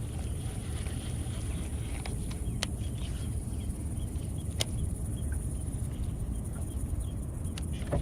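A steady high-pitched insect drone over a continuous low rumble, with a few sharp ticks now and then.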